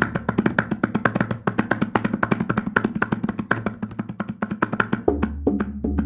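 Tabla played in a fast, even run of strokes, about ten a second, over a backing track. The track's deep bass drops out and comes back in about five seconds in.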